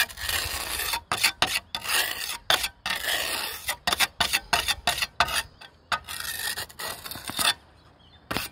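Steel pointing trowel scraping and smoothing grey pointing compound along the edge of tiled roof ridge capping, in quick repeated strokes that stop about a second before the end.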